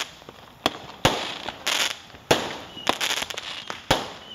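Neighbourhood aerial fireworks bursting overhead: a string of sharp bangs, about four loud ones and several smaller pops, with crackling in between.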